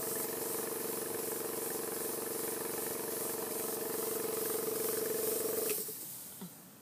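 Model V4 double-acting oscillating engine running fast on compressed air: a steady whirring hum with a hiss of exhausting air. Near the end the running dies away within about a second.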